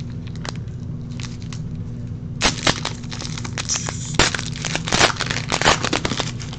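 Foil trading card pack wrapper being torn open and crinkled by hand. Sharp crackles start about two and a half seconds in and keep going as the wrapper is peeled back.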